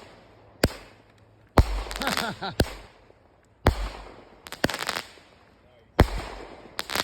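Chromtastic 500g consumer firework cake firing its shots about once a second. Each shot is a sharp bang followed by a stretch of crackle from the white strobe effect.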